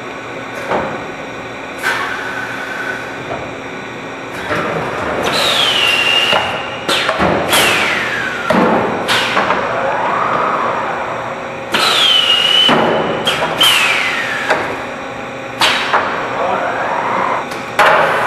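Sheet-metal production line machinery working, with irregular clanks and thuds over a steady hiss. Pairs of falling whines come twice.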